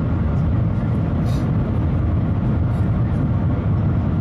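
Cabin noise of the Shanghai Transrapid maglev train cruising at about 430 km/h: a steady, loud low rumble with no change in level.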